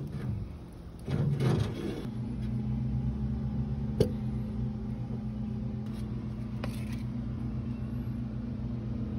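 Steady low motor hum, starting about two seconds in, with a single sharp click about four seconds in.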